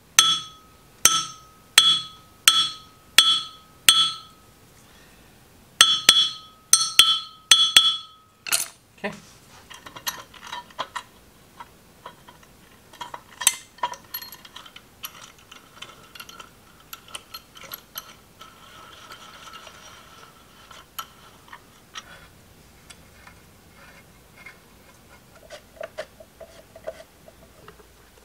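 About ten sharp hammer taps on a steel punch against the metal scale plate of the chain grinder's cast base, each ringing briefly with a clear metallic tone. They come in a run of six, then after a short pause a run of four. After that come quieter scattered clinks and clatter of metal parts being fitted.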